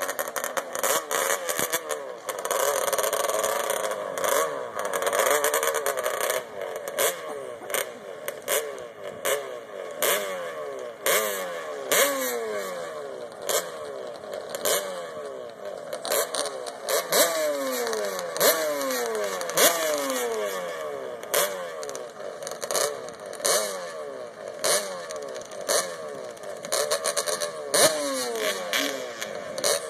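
ATV engines at a drag-race start, revved over and over, each blip of the throttle falling away in pitch, with many short sharp cracks through it.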